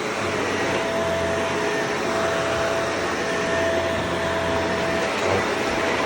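Vacuum cleaner running steadily: a constant rushing of air with a steady whine, unchanged throughout.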